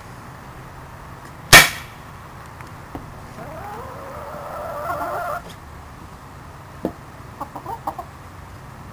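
A single sharp crack of a Crosman American Classic pump air gun firing a pellet, charged with ten pumps, about a second and a half in. A chicken calls for about two seconds after it, followed by a few faint clicks.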